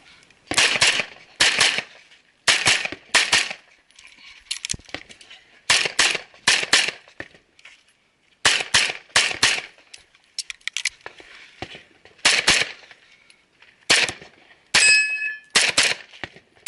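CZ SP-01 9mm pistol fired in quick pairs of shots, about a dozen pairs with pauses of a second or more between groups. Near the end one shot is followed by a brief ringing tone.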